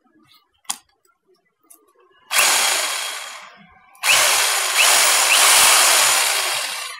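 Ryu RRH 32 rotary hammer run in the air, away from the wall, in two bursts. The first starts sharply a little over two seconds in and dies away. The second starts about four seconds in, runs longer and fades near the end.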